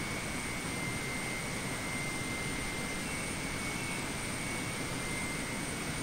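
Steady rainforest ambience: insects trilling at two constant high pitches over an even rushing hiss.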